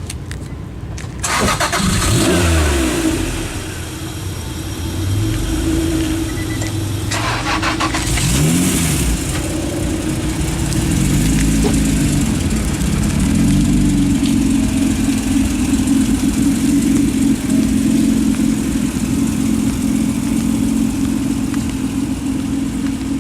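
Car engines revving as cars pull away, the pitch rising and falling several times in the first half as gears are shifted. This is followed by a loud, steady engine note in the second half.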